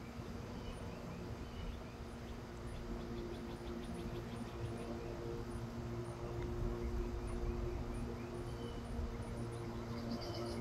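Outdoor background: a steady low hum with faint, high chirping of insects repeating through it.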